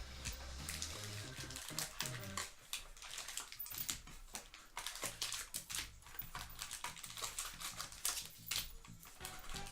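Baseball card pack wrappers crinkling and cards being handled: a rapid, irregular series of sharp crackles and clicks.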